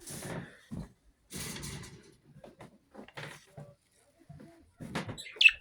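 A few rustling and knocking sounds, then near the end a pet bird gives one short, loud call that falls in pitch.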